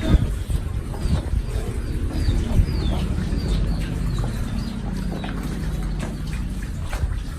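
Small birds chirping, a quick run of short falling notes that thins out after the first few seconds, over a steady low rumble.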